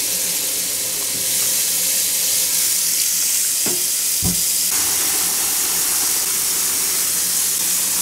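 Kitchen faucet running a steady stream of warm water into a plastic bucket of soapy water, a loud, even splashing hiss as the dish soap foams into suds. Two light knocks come near the middle.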